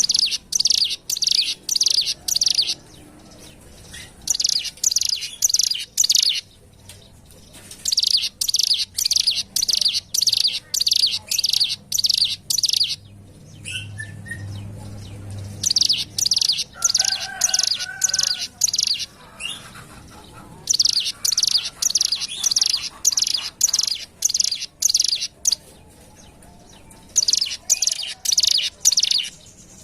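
A ciblek gunung (mountain prinia) singing in repeated bouts of rapid, high, even chirps, several notes a second, with short pauses between bouts. A fainter, lower bird call comes in briefly just past the middle.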